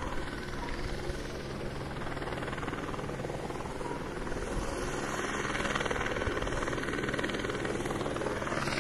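Police helicopter flying nearby, its rotor and turbine making a steady drone with a low hum that grows louder over the last few seconds.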